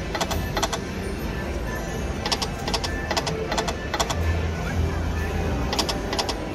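Konami Hoppin' Fish video slot machine spinning: quick runs of short ringing clicks as the reels stop, several times, over the steady din of a casino floor.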